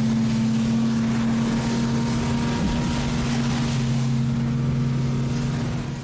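A small motorboat's engine running steadily at speed with a low, even drone. Rushing water and wind noise on the microphone sit under it.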